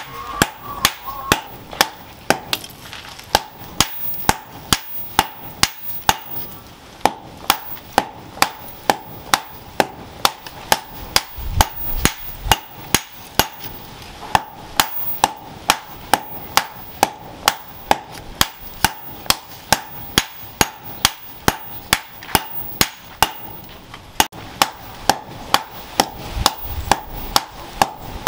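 Hand hammer striking a red-hot steel machete blade on a steel post anvil, in steady forging blows at about two a second, each with a bright metallic clang.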